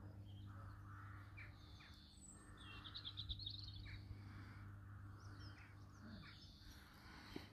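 Faint birdsong: scattered short chirps, with a quick trill about three seconds in.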